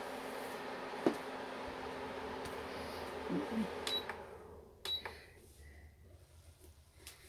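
Steady kitchen fan noise with a low hum, then two short, high beeps from the cooker's controls. After the beeps the fan noise dies away over about a second, as the cooker or extractor is switched off.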